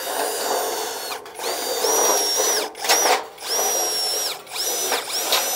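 Power drill driving a sheet-metal cutting attachment through sheet steel: a high motor whine over rasping cutting chatter, dropping out briefly several times and starting again.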